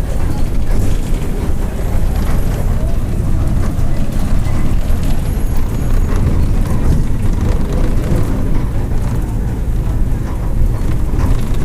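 Mercedes-Benz OF-1722M city bus running under way, a loud steady low rumble from its diesel engine and driveshaft, with the growl of the driveshaft (cardan).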